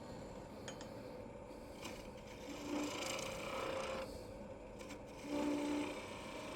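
Wood lathe running while a turning tool cuts the spinning black walnut in two short passes, about two and a half seconds in and again about five seconds in.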